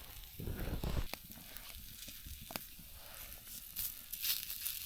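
Faint sizzling and crackling of potato pancakes frying on a plate over a too-hot campfire, with a few sharp isolated pops. A low rustle of movement comes in the first second.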